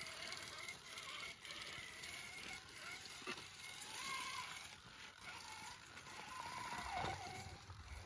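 Radio-controlled scale rock crawler driving over creek stones: its electric motor and gears whine, the pitch rising and falling with the throttle, with occasional clicks of tyres and chassis on rocks.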